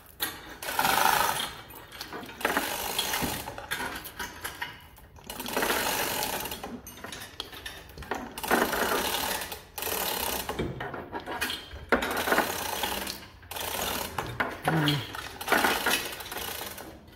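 Chain hoist on a gantry crane lifting a roughly 840-pound snowplow, its chain and mechanism clattering in repeated bursts about a second long with short pauses between.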